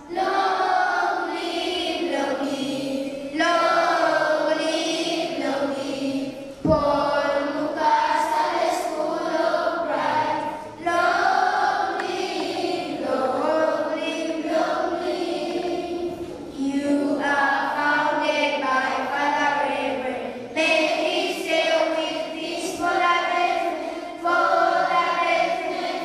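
A large group of children and adults singing together as a choir, in steady phrases a few seconds long. There is one brief knock about seven seconds in.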